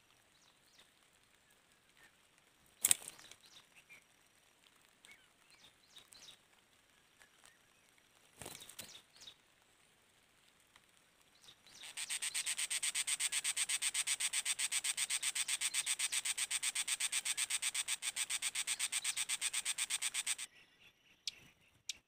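A sharp snap about three seconds in, then a bird caught in a bamboo snare beats its wings in a rapid, even flutter for about eight seconds before it stops suddenly.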